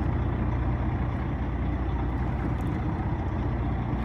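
Fishing boat's engine running steadily at idle, a constant low drone with a faint hiss above it.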